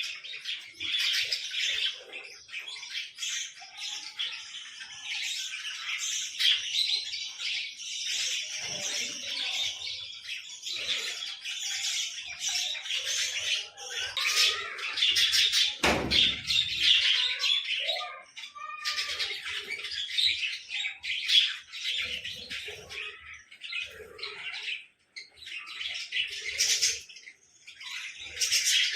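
Lovebirds and bulbuls chirping in a steady, dense chatter of high calls, with one dull knock about sixteen seconds in.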